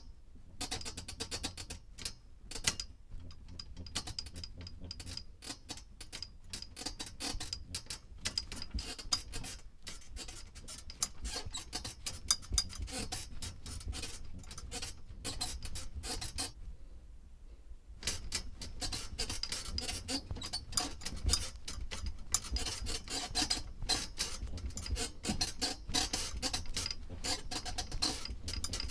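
Bed springs squeaking and creaking in quick, irregular runs. There is a brief lull a little past halfway, after which the creaking is louder.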